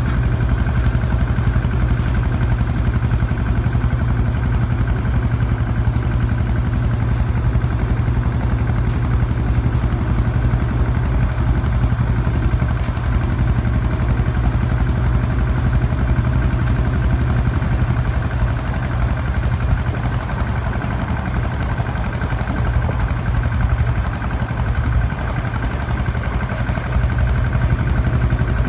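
Swaraj mini tractor's diesel engine running steadily under load, driving a power thresher.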